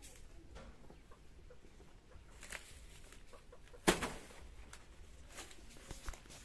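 A banana leaf being broken off the plant by hand: leaves rustling, then one sharp snap of the leaf stalk about four seconds in, the loudest sound here.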